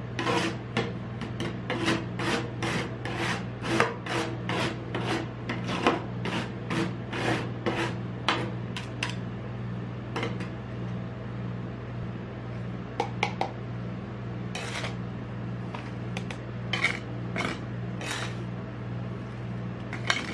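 Metal spatulas chopping and scraping crushed ice on a steel cold plate, with quick strokes about two a second, then fewer and more scattered strokes from about halfway in, over a steady low hum.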